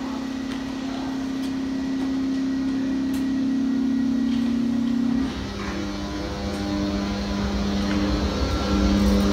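Railway locomotive running with a steady hum. About five seconds in, the hum changes pitch and a deep rumble builds as it powers up.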